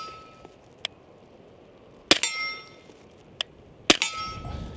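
Two suppressed .45 ACP pistol shots about two seconds apart from an FNX-45 Tactical fitted with a YHM Sidewinder suppressor. Each shot is followed by a brief metallic ringing clang, typical of a steel target being hit, with a couple of fainter ticks in between.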